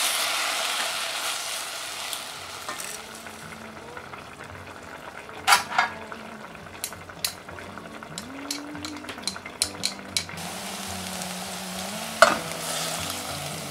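Sliced onions sizzling as they fry in a stainless steel saucepan and are stirred with a wooden spatula; the sizzle fades over the first few seconds. Midway come a few sharp clicks and taps against the pan, then a run of lighter clicks, and one sharp knock near the end.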